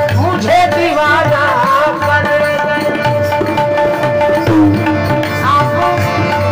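Harmonium and tabla playing an instrumental interlude of a folk ghazal: held harmonium notes with short melodic runs above them, over a steady tabla rhythm with deep bass-drum strokes.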